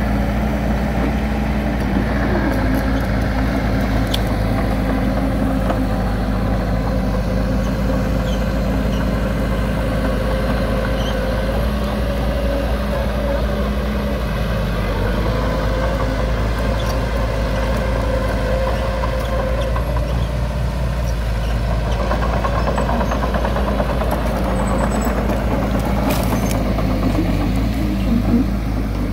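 Small crawler bulldozer's diesel engine running steadily and continuously close by.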